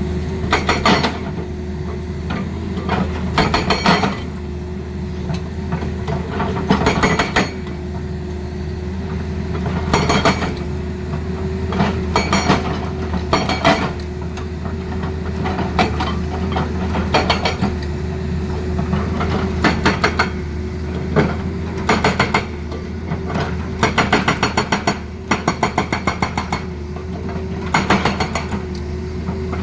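Hydraulic breaker on an excavator hammering in short bursts of rapid blows, repeated every second or two over the excavator's steadily running diesel engine.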